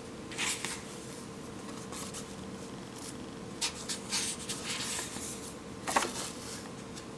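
A faint steady electrical hum with a few brief, soft rustles of a book being handled.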